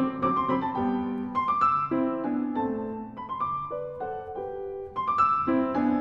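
Background piano music: single notes and chords struck at an unhurried pace, each ringing on and fading.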